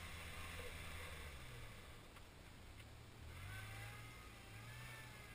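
Suzuki Jimny's engine pulling at low speed up a snowy slope, its note stepping up and down as the driver works the throttle. Faint wavering high tones come in over it in the second half.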